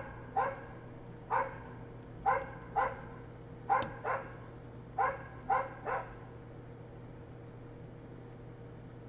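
A dog barking in short, high-pitched yaps, about ten over six seconds, then stopping.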